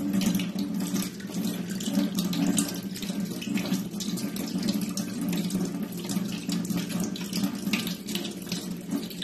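Kitchen tap running steadily, the stream splashing over hands that rub a lump of wet dough and falling into a stainless-steel sink.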